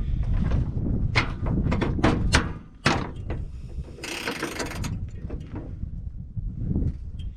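Metal knocks and clanks from tools on a rusted subframe bolt: several sharp knocks in the first three seconds, then a short hissing scrape about four seconds in.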